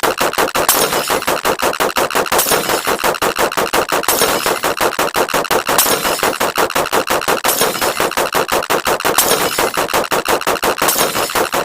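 A short sound effect repeated very rapidly and overlapping, many hits a second in a continuous rattling stream, like machine-gun fire.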